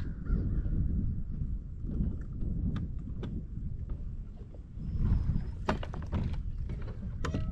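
Wind rumbling on the microphone, with scattered sharp clicks and a quick cluster of taps about six seconds in.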